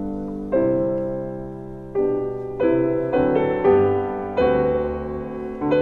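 Background piano music: a slow melody of single notes and chords, each struck and left to fade.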